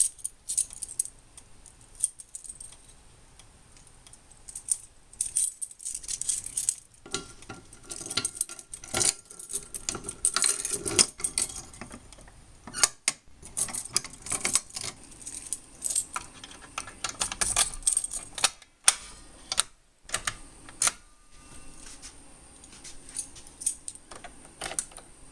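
Keys jangling and an irregular run of sharp clicks and rattles as fire alarm pull stations are reset with their reset key.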